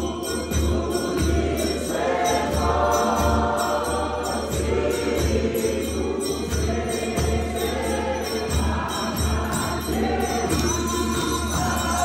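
Church congregation singing a worship song together over amplified music with a steady deep beat.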